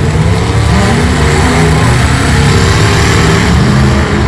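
Several demolition derby car engines running and revving together, loud, their pitch rising and falling.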